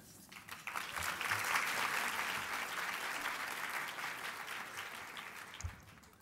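Audience applauding, swelling within the first second or so and then slowly dying away.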